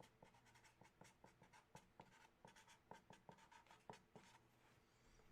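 Faint handwriting with a pen on paper: an irregular run of short scratching strokes that stops shortly before the end.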